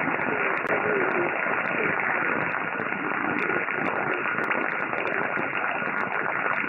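Shortwave single-sideband reception of a very weak station on 8812 kHz USB through an Airspy HF+ Discovery SDR: steady static hiss limited to voice bandwidth, with a steady whistle tone and the broadcast's faint wavering audio barely rising above the noise.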